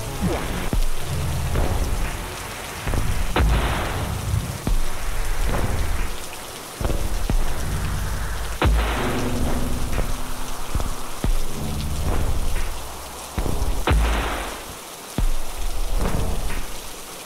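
Background track of rain hiss and thunder-like rumble over low sustained tones, with a sharp crack and swell that recurs about every five seconds.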